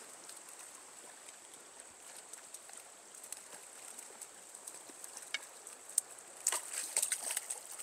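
Trout-stream ambience: a faint steady hiss under a thin, high, steady insect drone. About six and a half seconds in comes a short flurry of splashes and clicks as a hooked brown trout is played at the surface.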